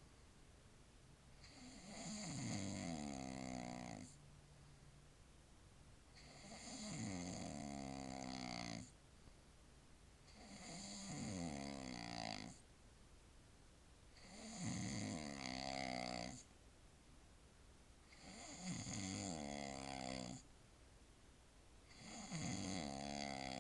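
A man snoring in his sleep: one long snore roughly every four seconds, six in all, each starting with a falling pitch.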